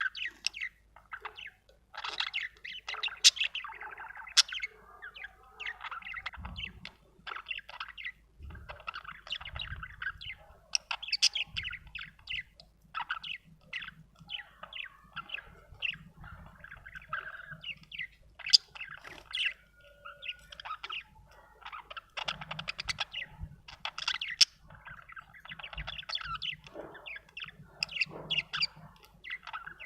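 Budgerigar chirping and warbling: a near-continuous run of quick chirps and chattering notes with frequent sharp, loud peaks.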